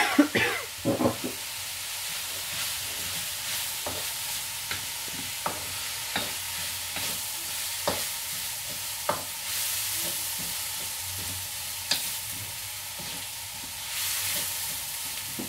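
Chopped vegetables and chicken sizzling in a steel wok while a wooden spatula stirs and scrapes them, with a steady hiss of frying and scattered sharp taps of the spatula against the pan, the loudest in the first second.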